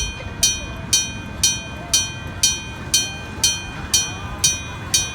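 Electric-bell level-crossing signal on a miniature steam-train ride, its bell struck at an even pace of about two strokes a second, each stroke ringing on briefly.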